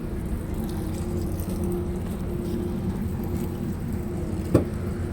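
Metrolink commuter train standing at the platform with its diesel running: a steady low drone with a constant hum, and one sharp knock about four and a half seconds in.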